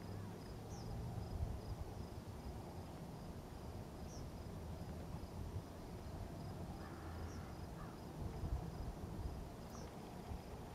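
Outdoor lake ambience: faint crickets chirping in an even pulse, with a short high falling chirp about every three seconds, over a low rumbling noise.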